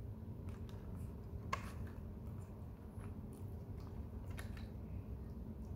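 Scattered light clicks and taps of a clear plastic cake container being handled while a baby monkey picks at the cake, over a low steady hum. The sharpest click comes about a second and a half in.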